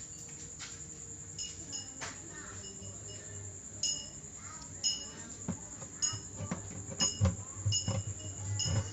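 Small metal pieces clinking in a jewellery-polishing machine, about a dozen bright ringing clinks that come more often in the second half, over a steady high-pitched whine, with a few low thumps near the end.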